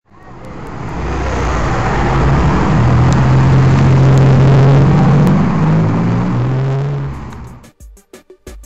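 TVR Tuscan 2's straight-six engine and loud exhaust as the car drives past. The sound builds up, is loudest about halfway through, then fades away with a slight drop in pitch. Music with a beat comes in near the end.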